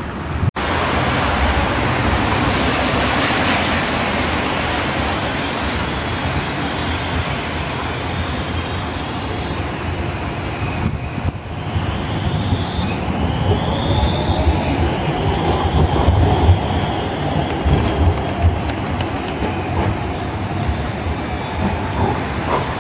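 Alstom Citadis 302 low-floor tram running past with a steady rumble from its wheels on the rails. About halfway through come high, bending squeals from the wheels.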